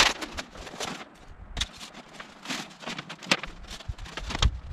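Metal stovepipe sections of a tent-stove chimney scraping and clicking as they are slid together by hand, a string of irregular short scrapes and knocks.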